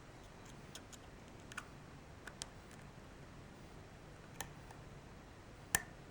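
Faint, scattered metallic clicks of a lock pick and tension wrench working the pins of a pin-tumbler challenge lock that has security pins, with one sharper click near the end.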